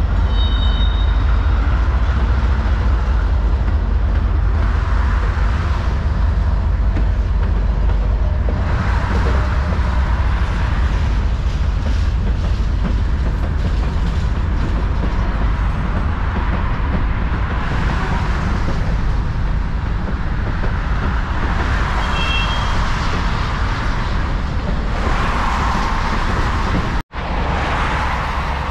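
Norfolk Southern freight train rolling past below, a steady low rumble of its cars on the rails mixed with highway traffic, with two brief high squeals. The sound breaks off for an instant about 27 seconds in.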